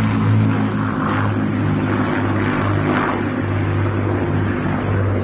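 Propeller-driven Second World War warplane engines droning steadily overhead, a deep even hum with its overtones.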